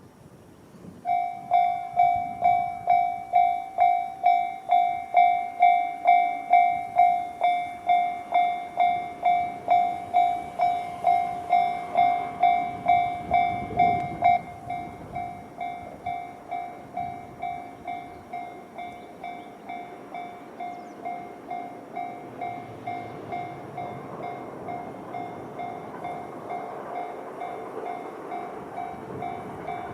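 Japanese railroad crossing alarm with the JR standard electronic bell, starting about a second in and dinging steadily about twice a second; about halfway through it drops to a lower volume. Near the end the rumble of an approaching train builds up under the bell.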